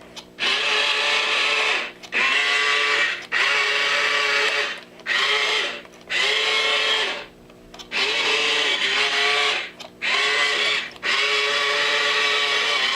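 A 12-inch remote-control Dalek toy buzzing in about eight bursts of a second or so each, every burst holding one steady pitch that slides in at the start and out at the end, with short gaps between.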